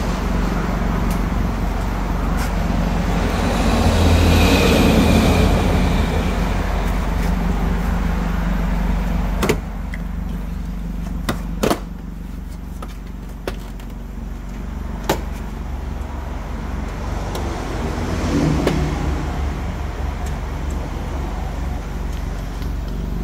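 Plastic door-panel retaining clips snapping loose as a trim tool pries the panel off a Chevrolet Malibu door: about four sharp snaps roughly two seconds apart near the middle, over a steady low hum.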